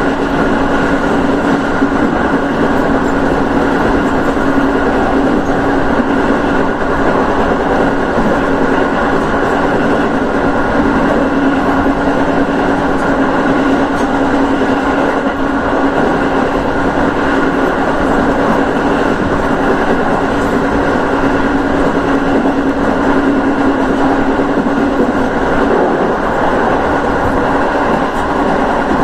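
JR East 205 series electric train running at a steady speed, heard from inside the front car behind the cab: constant running noise with a steady hum.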